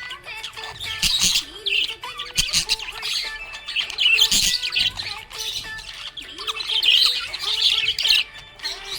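Budgerigars chirping and chattering in a busy, irregular stream of quick high calls and warbles.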